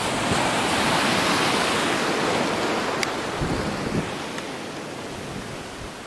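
Black Sea surf: a wave breaks and washes up the shallow shore as foam, the rush of water loudest about a second in and then slowly fading as it spreads out. Gusts of wind hit the microphone a few times in the second half.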